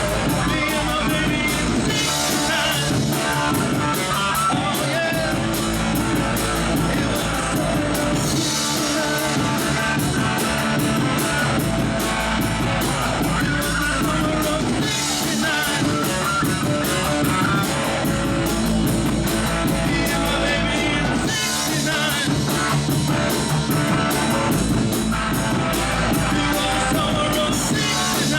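A live rock band playing a song, with a singer, guitar and drum kit over a bass line that changes note every few seconds.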